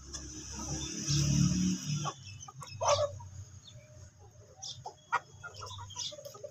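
A flock of desi chickens clucking while they feed, with one sharp, loud squawk about three seconds in and short scattered clucks after it. A low rumble fills the first two seconds.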